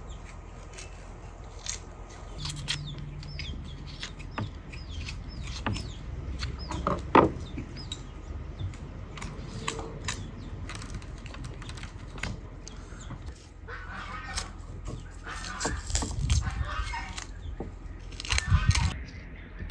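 Chickens clucking in bursts, mostly in the second half, with short chirps from small birds earlier on and a few sharp knocks over a low steady background hum.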